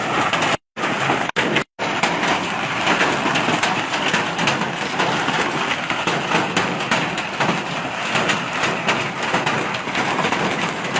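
Heavy hailstorm: a dense, steady clatter of countless hailstones striking, with two brief dropouts to silence about a second in.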